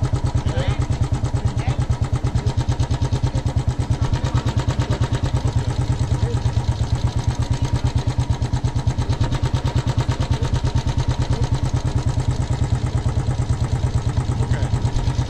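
Royal Enfield single-cylinder motorcycle engine idling steadily, with an even thumping beat of about eight to nine pulses a second.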